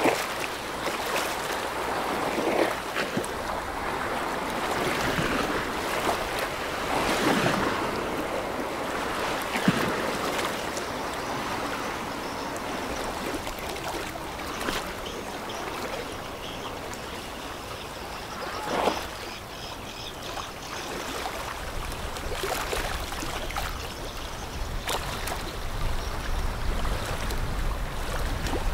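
Water rushing and splashing from a container ship's bow wave and wash, rising and falling in swells with a few sharp knocks. A low rumble comes in near the end.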